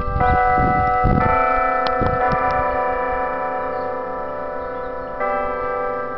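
Church bells ringing: several bells struck in turn, a new strike about every second at first, then a pause of about three seconds before the next, each tone ringing on and overlapping the others.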